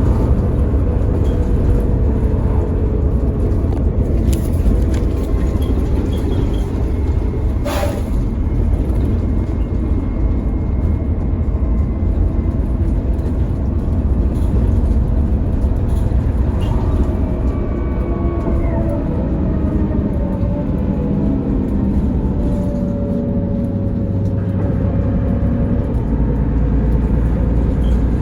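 Mercedes-Benz Citaro O530 bus under way, its drivetrain running with a whining ZF automatic gearbox whose pitch rises and falls with speed. A single sharp click about eight seconds in.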